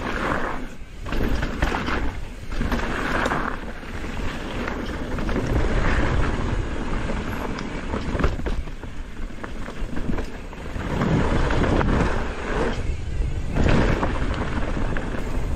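Wind buffeting a helmet camera's microphone, with the rumble of a mountain bike rolling over a trail. The noise surges and drops unevenly and is heaviest at the low end, dipping briefly a few times.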